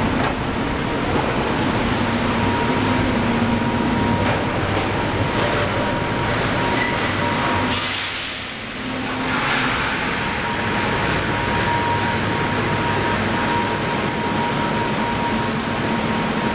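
Hot-rolling section mill for angle steel running: roll stands and roller table driving a red-hot steel bar, a loud steady industrial rumble and clatter with a faint hum. A brief hiss about eight seconds in, then the noise dips for a moment.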